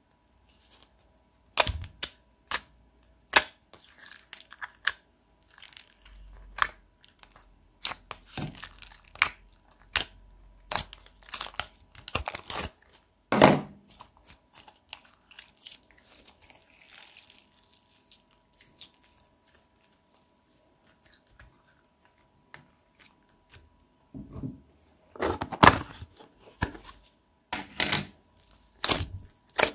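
Hands squeezing and poking slime (clear slime with foam balls, then thick purple slime), making irregular sticky clicks, pops and crackles. The sounds thin out for several seconds past the middle, then come louder and closer together near the end.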